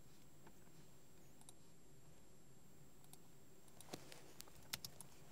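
Near silence with a faint steady room hum, then about four short, sharp computer clicks from a keyboard and mouse, bunched together near the end.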